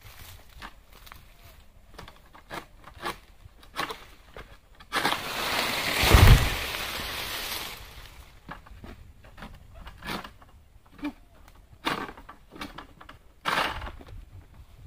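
Long-pole oil palm harvesting sickle working in a palm's crown: scattered clicks and leafy rustles as the blade cuts at the fronds. About five seconds in comes a long rushing swish with a heavy thud, as a cut frond comes down.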